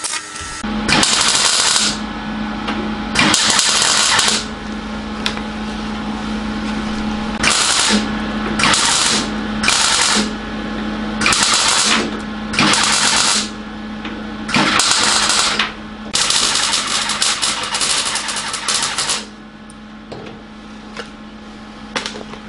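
MIG welder laying short stitch welds on a car body panel: about nine bursts of crackling arc, from half a second to three seconds long, over a steady low hum. The welds are run at a low setting (voltage 2, wire speed 4) to avoid burning through the thin old sill metal. The last and longest run stops about two-thirds of the way through.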